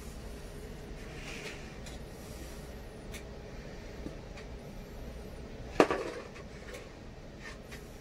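Kitchen utensil handling over a steady low hum: a few faint clicks and one sharp knock about six seconds in, as a knife works through boiled potatoes in a plastic bowl.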